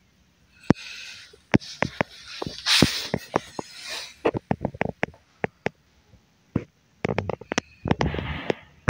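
Handling noise from a plastic tub and the phone filming it: many sharp clicks and taps, with bursts of scraping and rustling about a second in, around three seconds in, and near the end.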